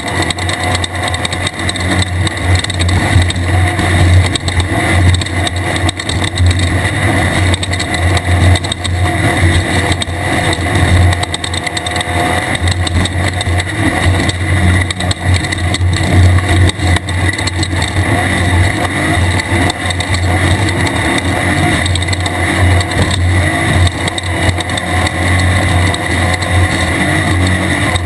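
A 1600-class desert race car's air-cooled Volkswagen engine running steadily with a deep, constant drone, over continuous rattling and rumbling from the rough ride.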